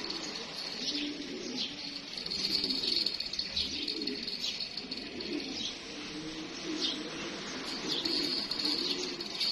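Domestic pigeon cooing over and over, a series of low rising-and-falling coos, from a male strutting in courtship display. A steady high chirping runs behind it.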